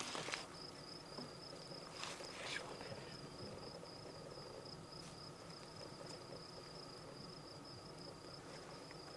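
An insect trilling: one steady, high-pitched chirring that runs on without a break. Soft brief rustles at the start and about two seconds in.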